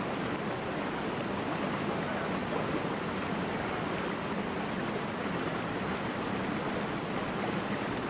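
Shallow stream water flowing over rocks and boulders close by, a steady, unbroken wash of water noise.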